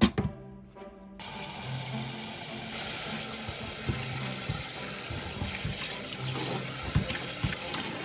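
A glass bowl knocks down into a stainless-steel sink. About a second in, a kitchen tap starts running and keeps going, water splashing over ponytail radish kimchi in a metal colander as the seasoning is rinsed off, with a few light knocks.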